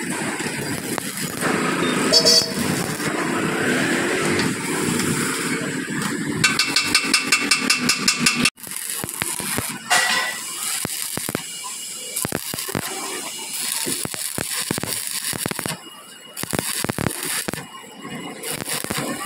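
Stick-welding arc crackling and sputtering irregularly as a bead is laid on a steel truck rear axle housing, starting after an abrupt break about eight and a half seconds in. Before the break, a steady background of vehicle noise and voices, ending in a couple of seconds of rapid, even pulsing.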